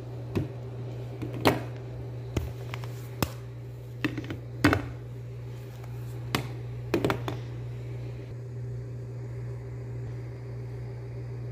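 Hard plastic baby dolls being set down and shifted on a glass tabletop: a scatter of about ten sharp knocks and taps that stops about seven seconds in, over a steady low hum.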